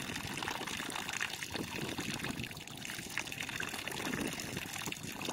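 Water trickling and splashing out of the holes of a plastic-bottle fish trap held up out of a canal, draining steadily back into the water below.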